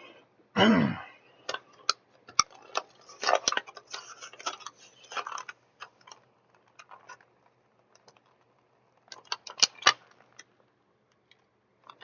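Irregular clicks and taps of hard plastic as Teenage Mutant Ninja Turtles action figures and their packaging are handled and set in place. The clicks come in a busy run over the first half and again in a short cluster near the end.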